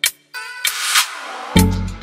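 Background music in a break: a single hit, then the beat drops out for a swelling wash of sound, and the beat comes back in with heavy bass about three-quarters of the way through.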